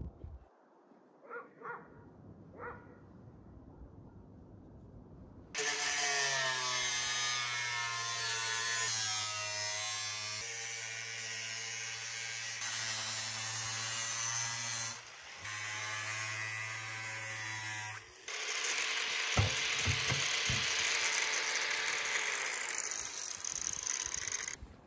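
A power saw running and cutting wood. It starts about five seconds in and runs loudly and steadily, with two short breaks, then cuts off just before the end.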